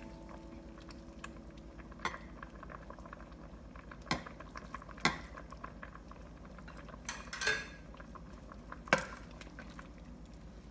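Soup simmering in a pot with a steady bubbling, broken by about five sharp clinks of a metal utensil against the pot or a dish.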